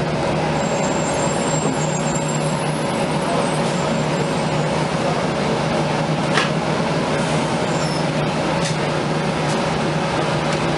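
Cabin noise inside a NABI 31LFW transit bus: the steady drone of its Cummins-Westport ISL-G natural-gas engine and loud HVAC blowers, with a constant low hum. A few faint high squeaks come and go.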